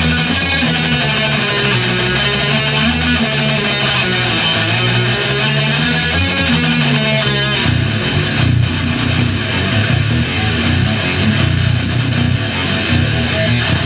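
Electric guitar and electric bass playing a heavy metal riff together; the riff changes about halfway through.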